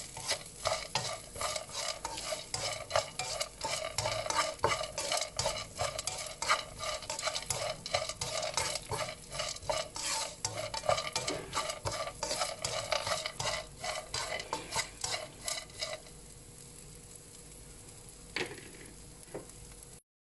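A spatula scraping and knocking against a pan as diced potato, peanuts and onion are stirred while they fry in oil, over a steady sizzle. The stirring stops about three-quarters of the way through, leaving only the sizzle with one more knock near the end.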